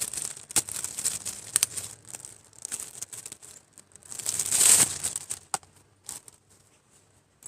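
Packaging crinkling and rustling as a bag is unwrapped by hand, dense at first, with a louder rustle about four and a half seconds in and a few sharp clicks after it, then it dies away.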